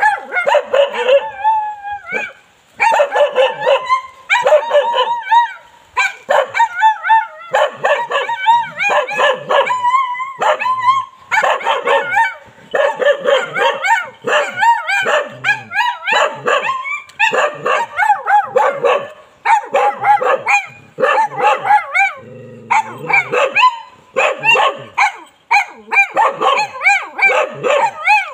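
Bali dogs barking in fast, nearly continuous runs of barks, some rising and falling in pitch, with brief pauses about two seconds in and again around two-thirds of the way through.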